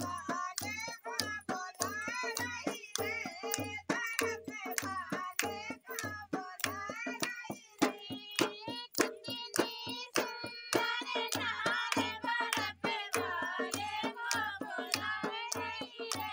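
Women singing a Bundeli dadra folk song together over a steady dholak beat of about two to three strokes a second.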